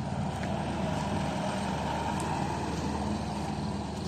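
Engine of a box delivery truck running steadily with a low drone as the truck drives slowly past.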